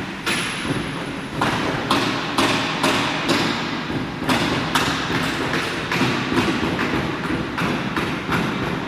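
CNC router with a rotary attachment cutting a cylindrical workpiece: a steady cutting noise broken by a string of sharp knocks at uneven intervals, about two a second.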